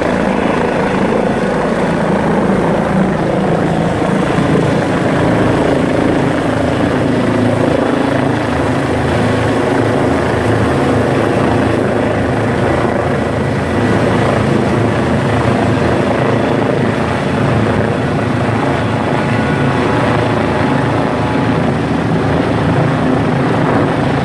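Twin-turbine Eurocopter EC135 helicopter taking off and climbing overhead, its main rotor and ducted Fenestron tail rotor running at take-off power. The sound holds loud and steady throughout.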